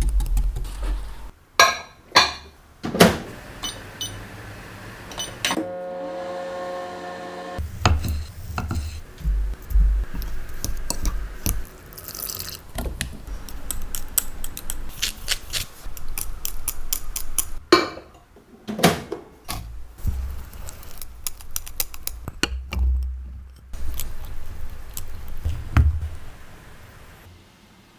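Kitchen handling sounds: dishes and utensils clatter and knock in irregular bursts, with a steady humming tone for about two seconds near a quarter of the way in.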